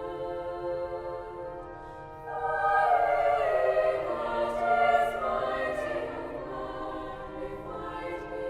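Choir singing held chords, swelling louder about two seconds in as more voices join.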